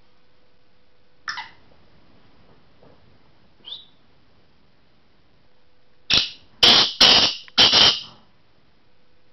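Male black francolin calling: two short single notes, then a burst of about five loud, harsh notes in quick succession near the end.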